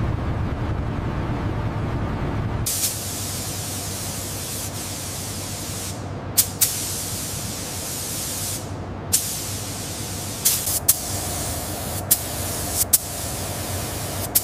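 Factory sounds: a low machine rumble for the first couple of seconds, then a steady loud hiss with several sharp clicks scattered through it.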